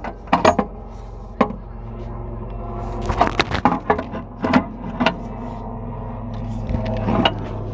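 Metal parts clinking and knocking as a Massey Ferguson tractor's hydraulic pump and lift linkage are fitted by hand inside the transmission housing. The sharp knocks are irregular, with a quick cluster about three seconds in, over a steady low hum.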